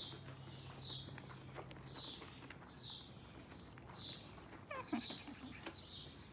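A bird chirps a short, falling call about once a second. Under it are the faint clicks of a horse munching hay. About five seconds in there is a brief wavering squeal.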